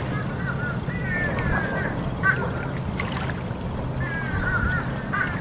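Birds calling over and over in short, wavering calls, over a steady low hum.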